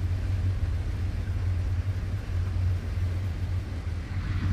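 Combine harvester running steadily through standing corn, a continuous low drone.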